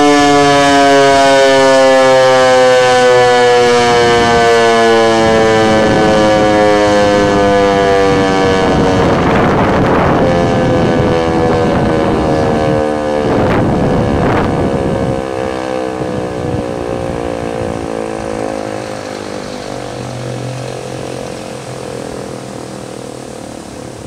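American Signal T-121 electromechanical tornado siren winding down at the end of its steady alert signal: its tone slides steadily lower in pitch and fades as the rotor coasts to a stop.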